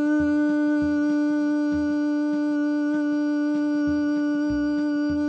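A woman's voice holding one long sung "moo" on a single unwavering note, sustained as a breath-control exercise. Soft backing music with low pulsing notes runs underneath.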